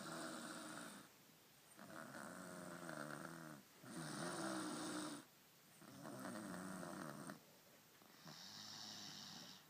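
Snoring: five long, rattling snores with short pauses between them. The last, near the end, sounds thinner and more hissy than the rest.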